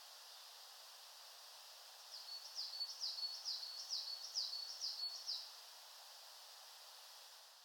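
A run of high, short chirping calls, about three a second, from about two seconds in to about five and a half seconds, over a faint steady hiss.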